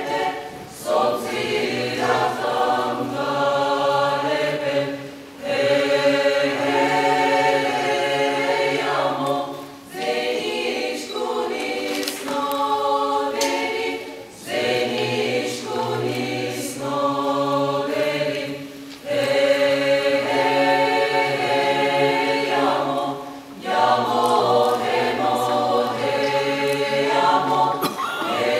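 Mixed choir singing a cappella in close polyphonic harmony over a low held bass, in phrases broken by short pauses every four or five seconds.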